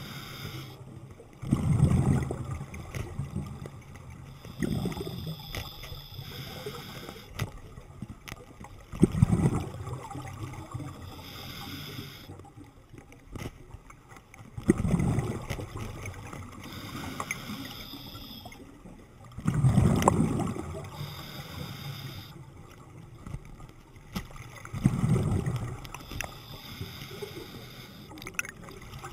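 Scuba diver breathing through a regulator underwater: a bubbling rush of exhaled air about every five seconds, with a thin hiss of the inhale between them.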